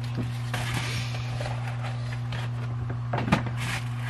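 Sandpaper sheets being handled and laid on a wooden cutting board: faint rustling and light taps, with a short cluster of knocks about three seconds in. A steady low hum runs underneath.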